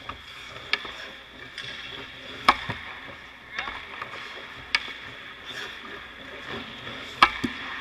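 Hockey pucks cracking off sticks, pads and boards at a goalie practice on ice. About four sharp cracks, the loudest about 2.5 s in and near the end, with softer knocks between them.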